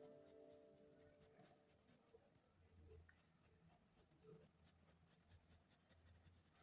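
Very faint scratching of a colored pencil on paper, a quick run of short shading strokes, with the end of background music dying away at the start.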